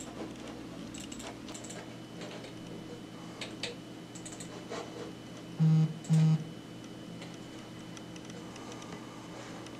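Scattered clicks of keys being typed on a keyboard, then two short, low buzzing electronic beeps about half a second apart, the loudest sounds here, over a faint steady hum.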